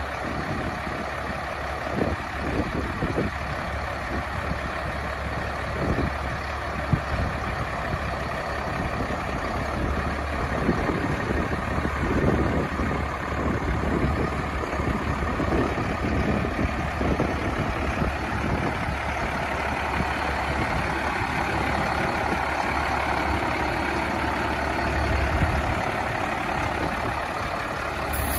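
Diesel engine of a 1992 International 4900 dump truck idling steadily, with a few short knocks in the first several seconds.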